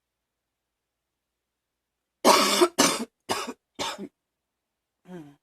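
A girl coughing: a fit of four coughs starting about two seconds in, each quieter than the last. It is followed near the end by a faint, brief vocal sound falling in pitch.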